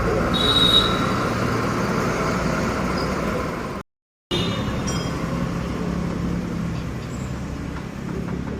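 Steady vehicle and street noise, with a brief high squeal about half a second in; the sound cuts out completely for about half a second near the middle.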